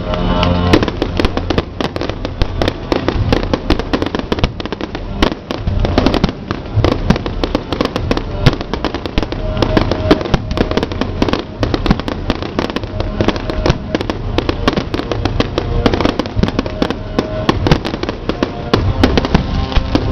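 Fireworks display: a dense, continuous barrage of bangs and crackles, many each second, with music underneath.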